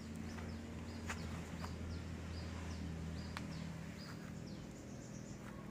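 A bird calling over and over in short high notes, two or three a second, over a low steady hum.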